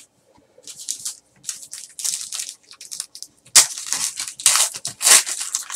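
Foil wrapper of a baseball card pack crinkling and tearing as it is ripped open by hand, in a run of short crackles that grow louder from about halfway on.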